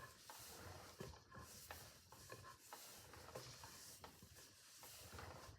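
Near silence: room tone with faint scattered ticks and light rustling.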